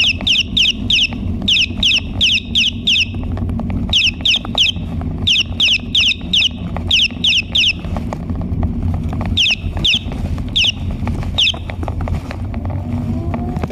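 Phone ringtone of short, identical, bird-like falling chirps, repeated in quick runs of three to six with pauses between them, over a steady low rumble.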